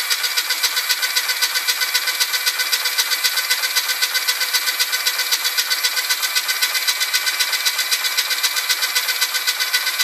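Starter motor cranking a freshly rebuilt 1380 A-series Mini engine with the spark plugs out, a steady, rapidly pulsing whirr. The engine is being spun over to build oil pressure before its first start.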